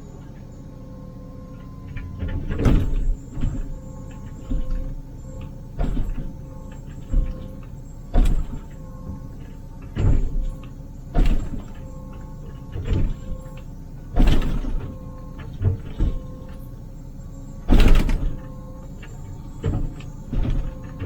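Wheeled excavator's diesel engine and hydraulics running steadily, heard from inside the cab. Short loud bursts of noise come roughly every one to two seconds as the machine works.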